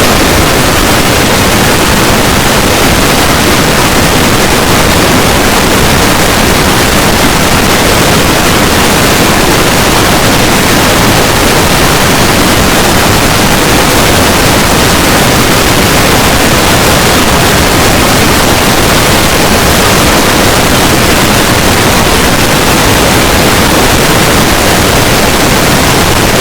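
Loud, steady static-like noise spread evenly across all pitches, with no tones, rhythm or breaks.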